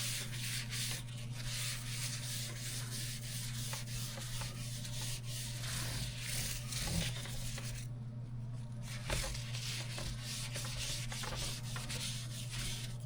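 Paper towel being rubbed back and forth over the plates of a George Foreman electric grill, a dry scrubbing sound in repeated strokes with a short pause partway through, over a steady low hum.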